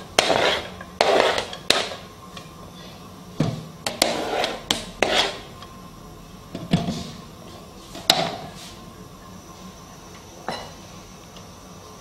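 Chopped onion scraped off a chopping board into a nonstick frying pan: about ten sharp knocks and taps of the board and utensils against the pan, bunched in the first five seconds and further apart after.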